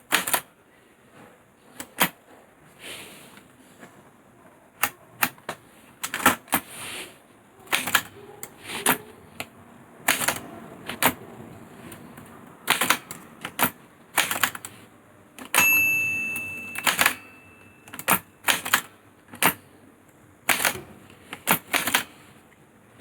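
Olivetti Lettera 22 manual portable typewriter being typed on slowly, with separate, unevenly spaced key clacks one or two a second. About two-thirds of the way through, a single bell rings for about a second: the margin bell warning that the line is nearly full.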